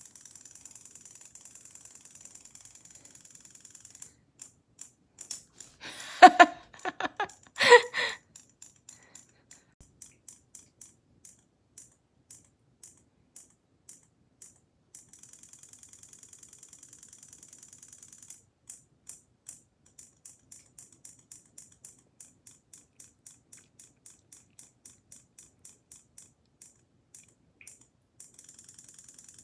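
Battery-powered robotic fish toy running in the hand out of water: a thin, high-pitched buzz in several stretches, with quick ticks about three a second between them as its little motor wags the tail. Two short, loud voice-like calls come about six and eight seconds in.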